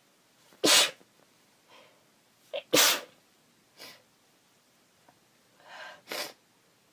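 A woman sneezing: two loud sneezes about two seconds apart, then a softer one near the end, with short sniffles in between.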